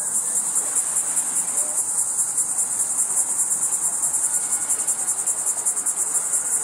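Insect chorus trilling steadily at a high pitch, with a rapid, even pulse.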